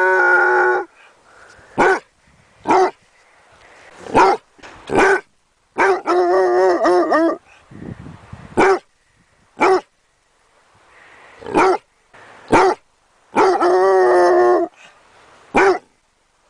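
A dog barking: a string of short, sharp single barks, broken three times by longer, wavering calls lasting a second or more.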